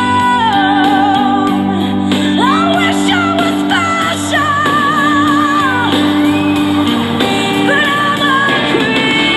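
Music: a slow rock song with a singer holding long, high, wavering notes that slide up and down between pitches, over steady sustained chords.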